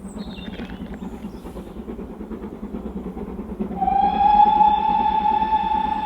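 GWR Mogul steam locomotive 9351 running on the approach to a station, then sounding its steam whistle about four seconds in: one loud steady note that swells up slightly in pitch as it opens and is held over the running noise.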